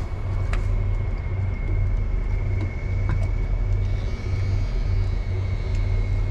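An engine running: a steady low rumble with a faint, constant high whine above it and a few light clicks.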